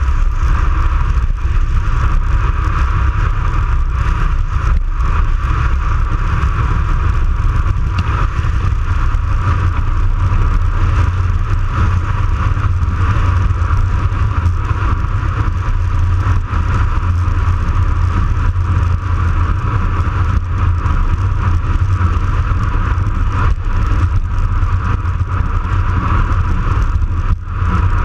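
Steady rushing wind on a bike-mounted action camera's microphone during a fast road descent, mixed with the hum of bicycle tyres on asphalt.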